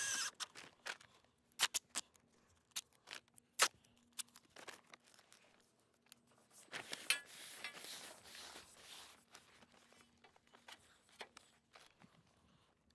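Grey duct tape pulled off the roll for about two seconds, starting about seven seconds in, as it is wrapped over the screwed joint of a galvanized steel roll bar. Before that come scattered sharp clicks and taps of hands and tools on the pipe.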